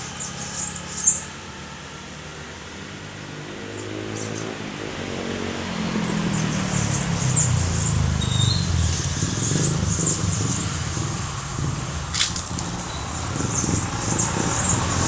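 Road traffic swelling as cars pass from about five seconds in, with a small bird giving short high chirps at intervals.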